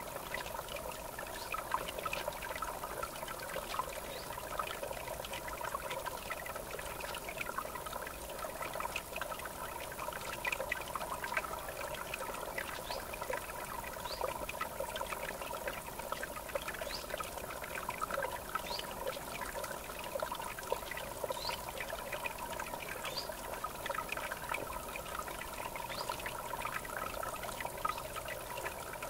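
River water trickling and splashing steadily at the bank.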